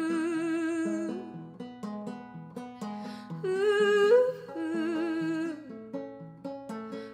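Music: a voice humming a wordless melody in long held notes with vibrato, over a plucked string instrument picking a steady pattern. One hummed phrase fades about a second in and another rises and falls between about three and a half and five and a half seconds in.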